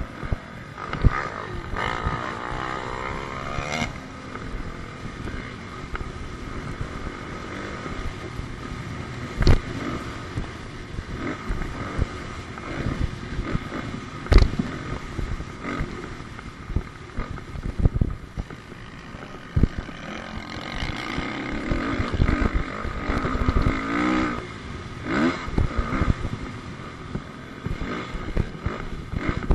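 Motocross dirt bike engine heard from the rider's helmet camera, its revs rising and falling over the track. Two sharp thumps stand out, about ten and fourteen seconds in.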